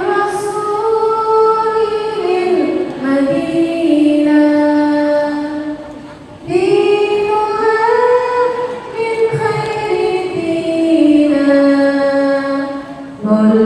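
A woman singing long, drawn-out melodic phrases, gliding between held notes; two long phrases with a brief breath about halfway through.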